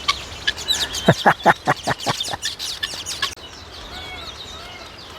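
A farm fowl calls in a quick run of about six harsh, descending notes starting about a second in. Small wild birds chirp and twitter throughout.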